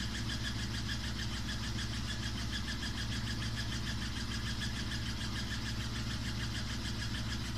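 Samsung WW5300 (WW95T534CAE) front-loading washing machine running loudly: a steady low hum with a fast, even pulsing noise over it. The noise is excessive for a nearly new machine.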